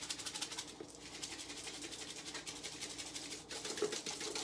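Dried herbs, pepper and red pepper flakes rattling inside a small sealed plastic container shaken fast by hand to mix a dry rub, with brief pauses about a second in and again near the end.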